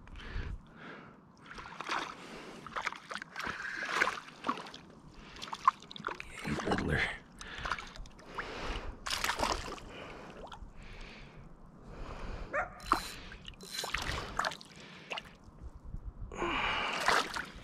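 A freshly caught trout being handled and unhooked in an inflatable packraft: irregular splashes, rustles and knocks against the raft, with some heavy breathing.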